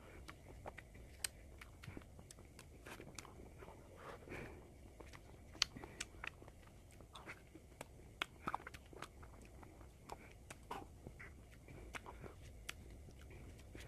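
Close-up eating sounds from ice cream: irregular biting and chewing with many sharp, wet mouth clicks and a few crunchy bites.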